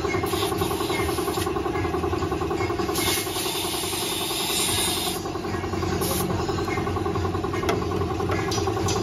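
Air compressor running steadily, with a spray gun releasing air in hissing bursts, the longest from about three to five seconds in.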